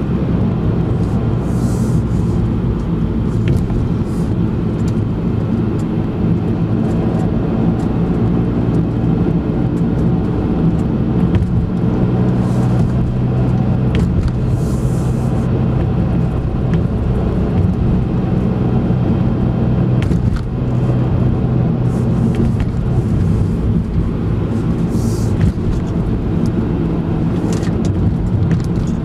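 Car engine and tyre noise heard from inside the cabin while driving, a steady low drone with a few brief faint hissing swells.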